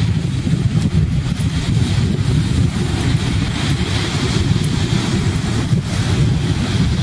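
Wind noise on the microphone, a steady low rush, over the wash of ocean surf breaking on the beach.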